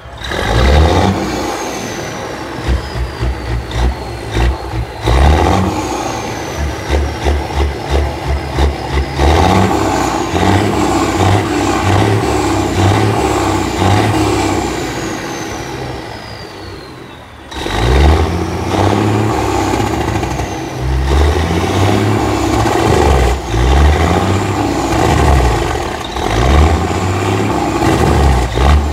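Semi truck's diesel engine revved hard and repeatedly. First comes a run of quick throttle blips, then a long held rev about nine seconds in that winds down with a high, falling whistle. After a brief lull near the middle, another series of revs follows.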